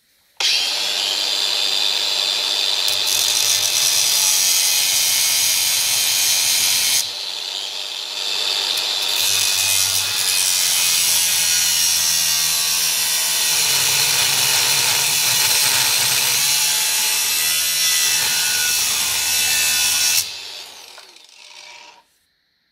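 Angle grinder with a cut-off disc cutting through a steel bolt held in a vise. It starts suddenly, eases off briefly about seven seconds in, then is switched off near the end and winds down over a couple of seconds.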